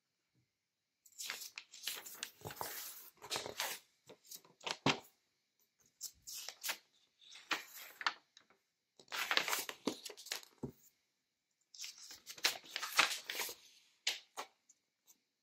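Pages of a paperback book being turned and flipped by hand: several separate bursts of paper rustling, each a second or two long, with short pauses between them.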